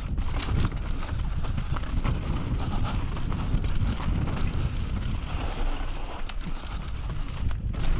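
Mountain bike rattling and clattering at speed down a rocky, loose-surfaced trail, its tyres knocking irregularly on stones, over a steady low rumble of wind on the microphone.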